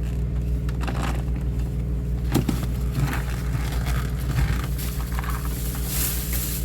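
Plastic bag of dry cat food being handled, crinkling and rustling in irregular bursts, over a steady low hum.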